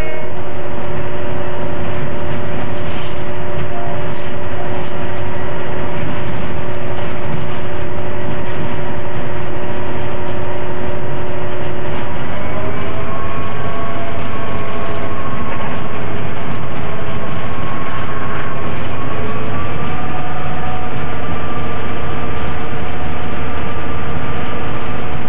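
Diesel locomotive heard from the cab, its engine running loud and steady under the rumble of the moving train. The engine note steps up in pitch about halfway through and again a few seconds later.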